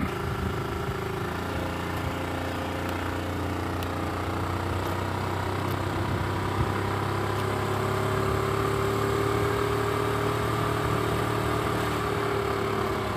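An engine running steadily, its pitch and loudness rising slightly about two-thirds of the way through and easing back.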